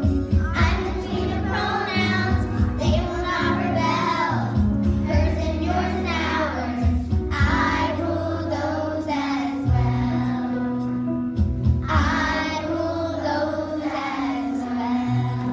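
A young girl singing a solo song into a microphone, with held and gliding notes in sung phrases over a steady musical accompaniment.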